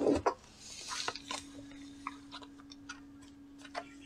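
Tarot cards being drawn from the deck and handled: scattered light clicks and soft rustles of card stock, loudest just at the start.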